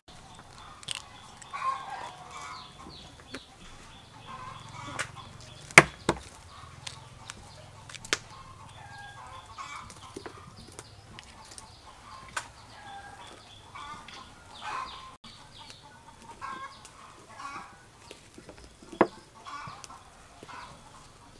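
Hens clucking on and off throughout, with a few sharp knocks of eggshells being cracked against a bowl, the loudest about six seconds in.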